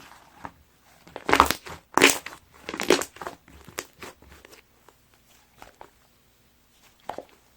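Crunchy chocolate sherbet slime being squeezed and pressed by hand, crackling and crinkling. Three loud squishes come a little over a second in, then softer pokes, and one more squish near the end.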